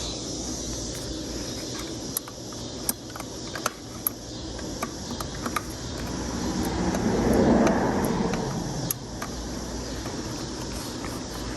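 Sharp little plastic clicks and taps as a headlight bulb is twisted and worked free of its housing on an ATV, over a steady background hum. About seven seconds in, a passing car swells up and fades away.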